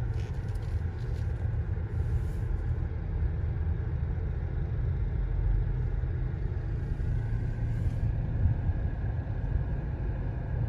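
Car driving slowly, its engine and tyre noise heard from inside the cabin as a steady low rumble.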